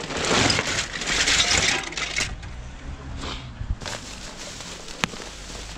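Rustling and crackling of rubbish being rummaged through by hand, loudest in the first two seconds, then a couple of shorter rustles and a sharp click about five seconds in.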